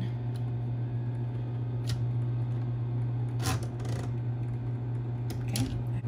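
SCM Smith-Corona Coronet Electric 12 electric typewriter with its motor humming steadily, and a handful of scattered sharp mechanical clacks from its keys and typing mechanism.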